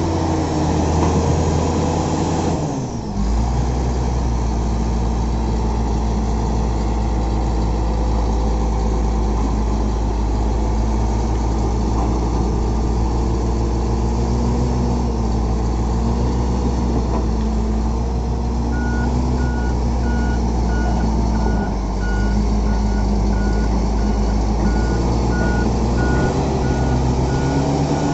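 Shantui SD20-5 bulldozer's diesel engine running steadily, its pitch dropping briefly about three seconds in before settling again. From about two-thirds of the way through, a reverse alarm beeps regularly, about one and a half beeps a second.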